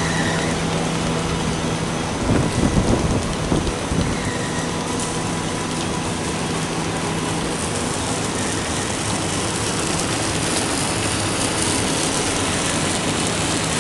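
Core-filled snack production line machinery running: a loud, steady mechanical din of hiss and hum. About two seconds in the steady hum drops out and a short spell of low rumbling knocks follows.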